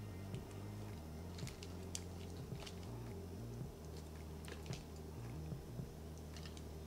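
Soft wet squishes and a few light clicks as saucy noodles are lifted with tongs onto a plate, over faint background music with a low bass line.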